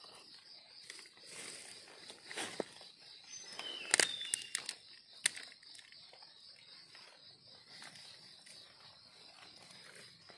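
Dry leaf litter rustling and crackling under a hand picking wild mushrooms off the forest floor, with a few sharp snaps, the loudest about four seconds in. Insects chirr steadily and high-pitched throughout.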